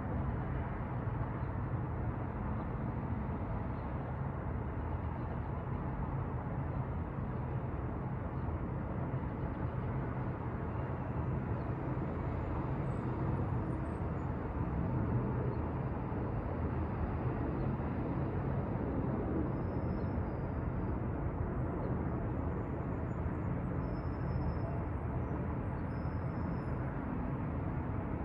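Manhattan street traffic heard from a 12th-floor window: a steady, low blend of engines and tyres with no single vehicle standing out.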